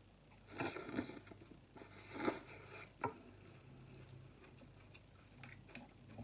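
Close-up eating sounds: two loud bursts of crunching and chewing on a mouthful of leafy greens, about a second apart, then a single sharp click about three seconds in.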